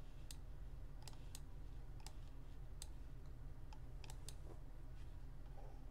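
Faint computer mouse clicks, about eight of them spaced irregularly, some in quick pairs, over a steady low hum.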